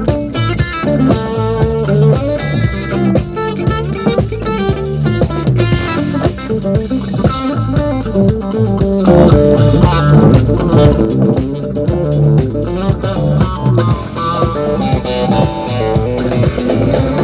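Live band playing an instrumental break with no singing: guitar picking the melody over bass guitar and drums.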